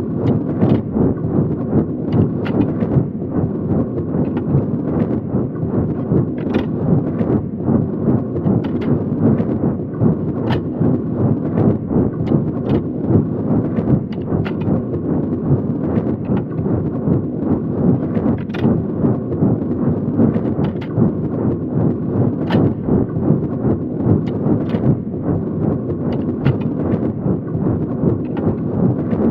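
Train running on the track: a steady low rumble with frequent, irregular metallic clinks and clacks from the wheels and track.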